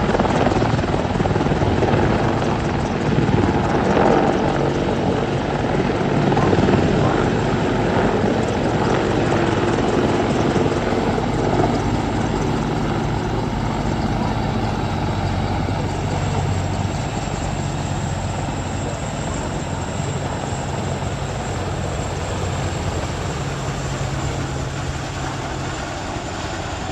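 Helicopter flying a display, with steady rotor and turbine noise that eases off gradually over the second half.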